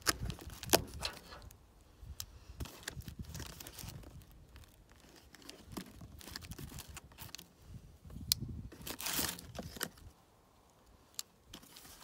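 Packing tape being slit and torn off a small cardboard box, with cardboard flaps rustling and scraping in short, intermittent bouts and a few sharp clicks, the loudest just under a second in.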